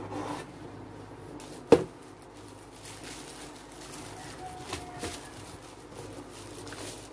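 A single sharp knock a little under two seconds in, then soft rustling and crinkling of a frosted plastic bag as a keyboard is unwrapped, with a few light taps.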